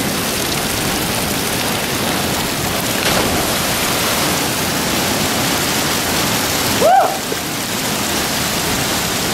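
Steady rush of river water pouring over rocks into a pool, with a short shout about seven seconds in.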